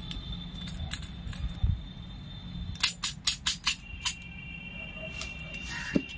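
Snap-off utility knife working at a paper-wrapped cardboard box: sharp clicks and scrapes, with a quick run of about five clicks about three seconds in.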